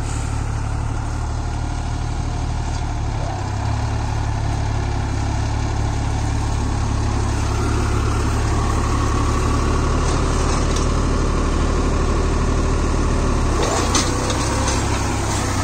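Deutz-Fahr Agromaxx 4055E 55 hp tractor's diesel engine running steadily while it pulls a rigid cultivator working the soil. The engine note gets heavier a few seconds in.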